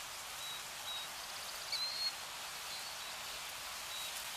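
Steady outdoor ambient hiss, with a few short high chirps from a bird scattered through it.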